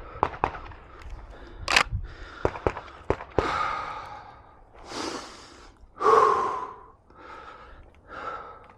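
A few sharp clicks and knocks in the first few seconds, then a series of heavy breaths close to the microphone, the loudest about six seconds in.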